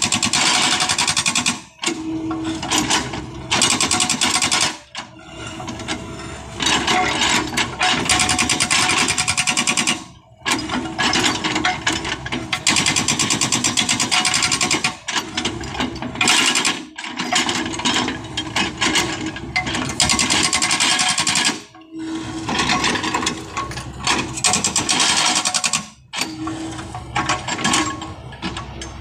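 Hydraulic breaker on a backhoe hammering hard adobe rock in bursts of rapid, even blows lasting a few seconds each, with short pauses between bursts. The machine's engine runs underneath.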